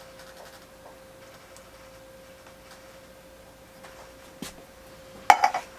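Quiet kitchen work: a steady faint hum, a few light clicks and taps, and a short, sharp clatter a little over five seconds in.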